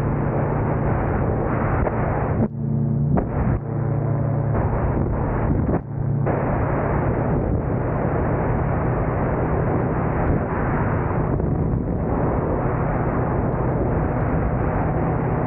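Gyroplane engine and pusher propeller running steadily under heavy wind buffeting on the microphone, with brief dips in the noise about two and a half and six seconds in.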